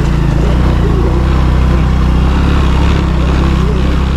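Motorcycle engine running hard and steadily, its revs wavering a little.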